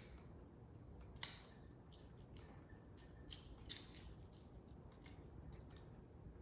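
Faint, scattered clicks and taps of plastic magnetic building tiles being handled and snapping together, the sharpest click about a second in.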